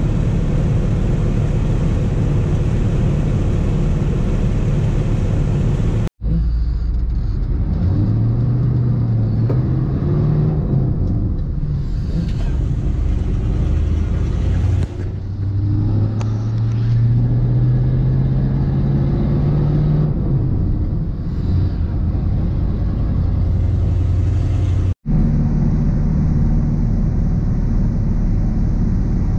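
GMC 3500's 6.2-litre diesel V8 running under way, heard from inside the cab as a steady low drone over road noise. In the middle stretch its pitch climbs steadily as the truck accelerates, then drops back.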